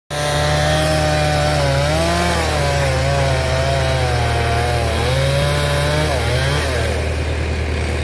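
Chainsaw running and cutting into a fallen tree trunk, its engine pitch wavering up and down as it works in the cut, with a dip and recovery about six and a half seconds in.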